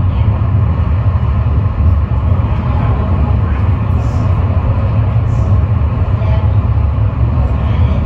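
Montjuïc funicular car running downhill through its tunnel, heard from inside the car: a steady, loud low rumble of the wheels on the rails.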